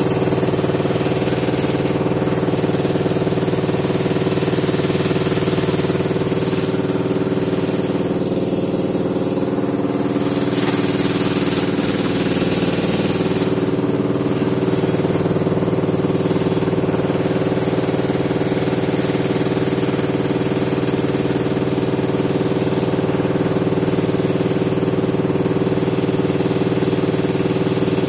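Samsung WF604 front-loading washing machine in its final high-speed spin at around 1,200 rpm: a steady whine from the motor and drum over a fast rattle as the machine shakes badly.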